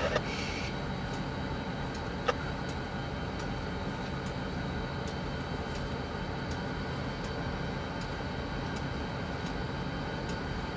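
Diesel-electric locomotives idling, a steady low hum. Faint ticks come at an even pace, a little over once a second, and there is a single sharper click about two seconds in.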